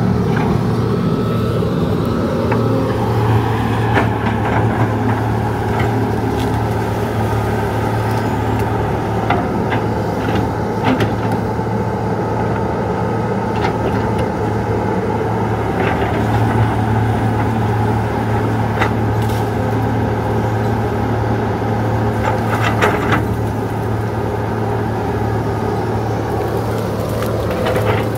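Hydraulic excavator's diesel engine running steadily, with scattered sharp cracks and snaps over it.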